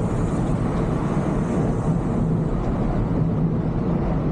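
Volvo B11R coach cruising on an open road, heard from the driver's cab: a steady low drone of its diesel engine mixed with road and wind noise.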